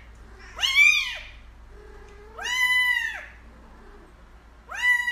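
Grey kitten meowing three times, about every second and a half to two seconds, each high call rising and then falling in pitch.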